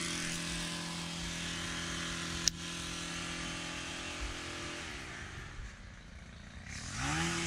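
Baitcasting reel being cranked to retrieve a lure, a steady gear whir. The whir winds down and stops just before the halfway point, then picks up again to the same pitch near the end as the cranking resumes. A single sharp click about two and a half seconds in.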